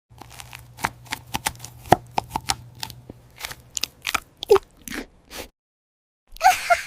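A quick, irregular run of crisp crunches and crackles, like something being bitten and chewed, for about five and a half seconds. It breaks off briefly, then a short, louder burst with some higher pitched sound begins near the end.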